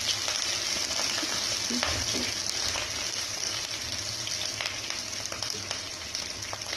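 Chopped garlic and curry leaves sizzling steadily in hot oil in a nonstick pot, with a plastic spoon stirring and tapping against the pan now and then.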